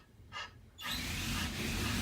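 A short electronic squeak from a Sony aibo robot dog, then a steady rushing noise with a low hum starts a little under halfway through.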